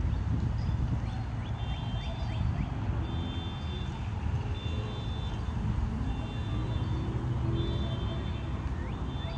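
Outdoor ambience: a steady low rumble with small birds chirping over it in short, high, thin notes, some quick upward-sweeping chirps and some brief held whistles, recurring every second or two.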